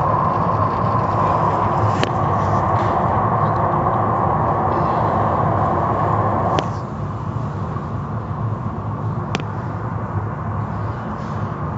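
Automatic tunnel car wash running: spinning cloth brushes and swinging cloth strips slapping over a car amid water spray and machinery, a steady loud din. The din drops noticeably about two-thirds of the way through, with a few sharp clicks scattered through.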